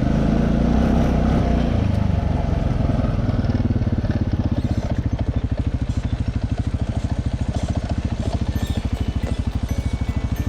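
TGB Target 550 quad's single-cylinder four-stroke engine running, with higher, varying revs for about the first two seconds, then settling into an even, pulsing idle.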